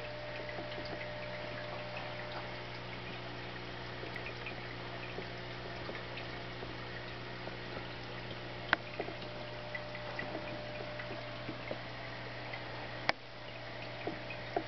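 Aquarium air bubbles and filter water bubbling and trickling with small pops, over a steady low hum. Two sharp clicks stand out, about nine and thirteen seconds in.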